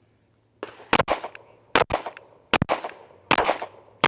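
Five pistol shots fired in a steady cadence about three-quarters of a second apart, the first about a second in, each followed by a short echo: a split-time drill run slower than the intended half-second splits.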